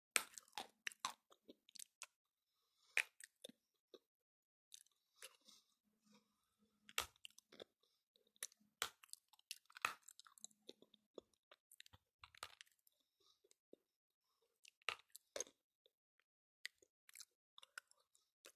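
A person biting and chewing dry Kramatorsk chalk: a run of irregular, sharp crunches with short pauses between bites.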